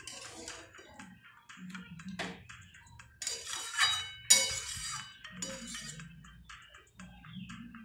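Steel spatula stirring a thick chickpea and potato curry in a metal pan, scraping and clinking against the pan. The two loudest scrapes come about three and four seconds in.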